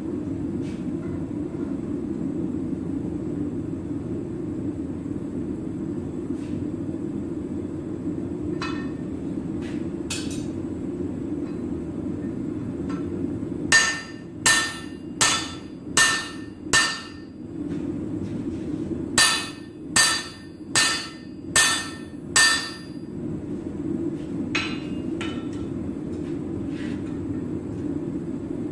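Hand hammer striking a red-hot 1-inch steel bar held upright in a tool, forging its tenon: two runs of six sharp, ringing blows, about one and a half a second, with a few light clinks of steel before them. A steady low machine hum runs underneath.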